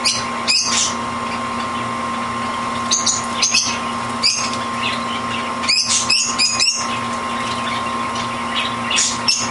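Canary bathing in a metal water dish: short bursts of splashing and wing-fluttering come in several clusters, the busiest a little past the middle. Under them is a steady background hum.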